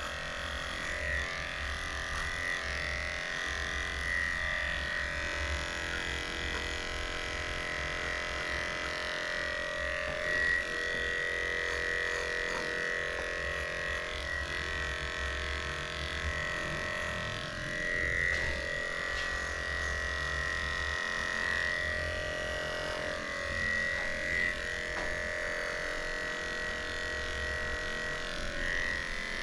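Electric dog grooming clippers running with a steady whine as they shave through a dog's coat.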